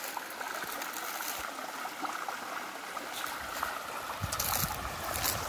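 Shallow stream running over rocks: a steady rush of water, with a low rumble coming in about four seconds in.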